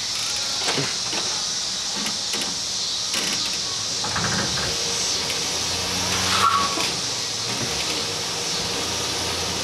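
Chevrolet Silverado pickup engine running at idle, a low steady hum, under a constant high hiss.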